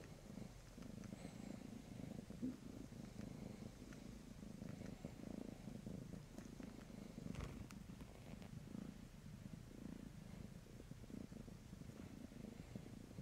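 A domestic cat purring steadily, close to the microphone: a low, continuous pulsing rumble.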